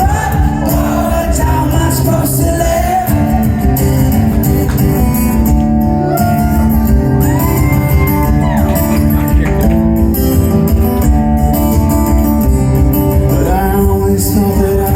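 Live band music with singing, loud and continuous.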